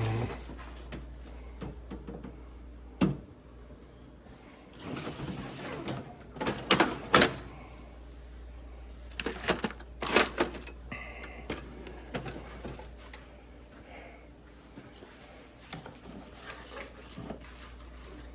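Tools and supplies being rummaged through by hand: scattered knocks, clatters and rustling as items are moved about, the sharpest knocks about seven and ten seconds in, over a steady low hum.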